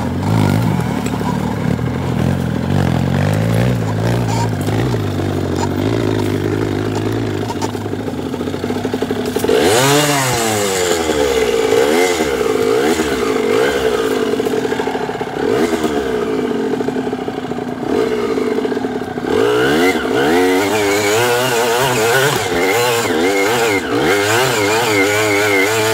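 Dirt bike engine revving up and down over and over, its pitch rising and falling in quick surges; steadier at first, with the surges coming thick and fast from about ten seconds in and again near the last third.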